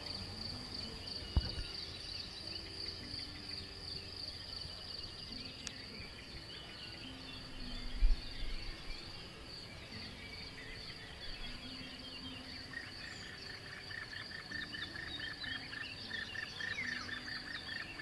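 Meadow ambience: a steady high insect trill with many short bird chirps over it, joined from about two-thirds through by a fast, evenly pulsing call. A low thump comes about eight seconds in, with a smaller knock shortly after the start.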